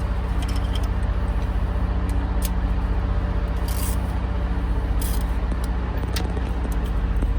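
A nearby engine idling steadily with a low drone, with a few short clicks over it.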